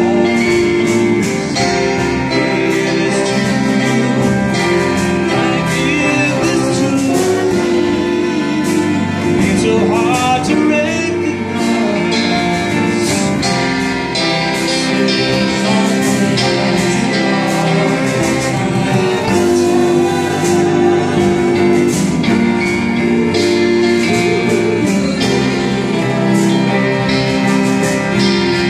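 Live band playing a song with a lead vocal, backed by acoustic and electric guitars, violins and a drum kit keeping a steady beat.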